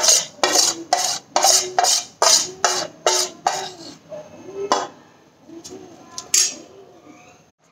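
Steel spoon scraping and tapping on a stainless steel plate while scooping up dry potato starch, in a quick run of clinks about three a second, then two more single knocks later.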